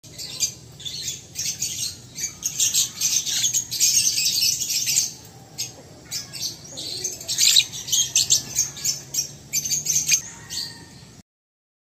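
Peach-faced lovebird of the violet opaline colour form chattering: rapid, shrill chirps in two long bouts, with a short break about five seconds in. The sound stops abruptly near the end.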